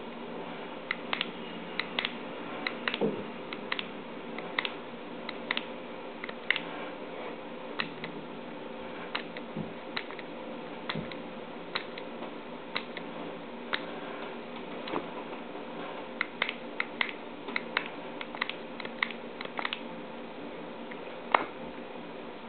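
Shimano RSX 2x8-speed STI shift lever clicking as its lever is swung through the shifts, the ratchet indexing one click at a time and sometimes in quick runs of several. The clicks sound over a steady low hum.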